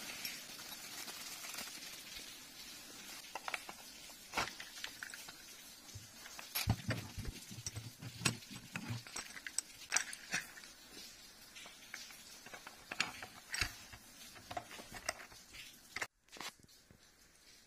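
Handling noise from unpacking a metal table-clamp camera arm: a small plastic bag and bubble wrap crinkling, then scattered clicks and knocks as the clamp and arm parts are turned over in the hands, with a few dull thumps.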